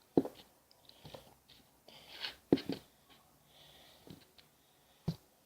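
Close-up eating noises while eating cheesecake: a few sharp taps, the loudest about a second in and twice in quick succession halfway through, with soft chewing and breathing between them.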